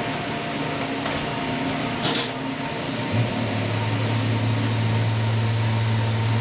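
A machine running with a steady low hum that grows louder about three seconds in, with a brief hiss about two seconds in.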